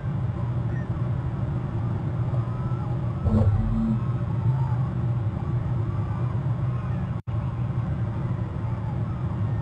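Steady low outdoor rumble and hum, with a louder swell about three seconds in and a brief complete dropout about seven seconds in.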